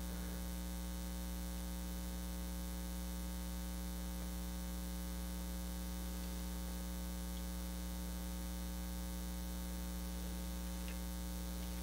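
Steady electrical mains hum with a stack of overtones, unchanging throughout; no other sound stands out.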